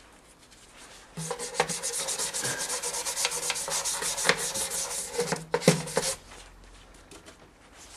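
Brisk scrubbing with a brush on the motorcycle engine's casing, quick repeated strokes starting about a second in and stopping about six seconds in.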